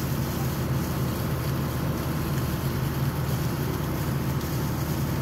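Water gushing steadily out of a 50 hp submersible well pump's discharge pipe and splashing into a dirt irrigation furrow.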